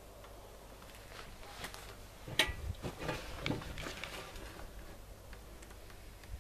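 Light clicks and knocks of hands handling tools and the battery, with one sharp click about two and a half seconds in and a few smaller knocks after it, over a low background.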